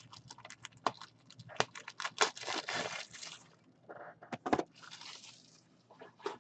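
Trading cards and plastic card holders being handled and sorted: a run of small clicks and short rustles, with a last sharp click near the end.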